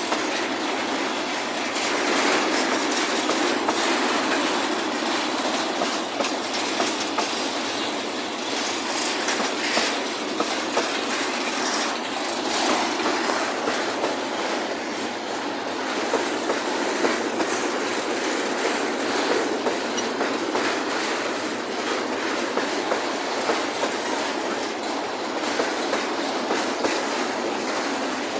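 Freight train cars (hoppers and boxcars) rolling steadily past. The wheels clatter over the rail joints as a continuous rumble broken by frequent clicks and knocks.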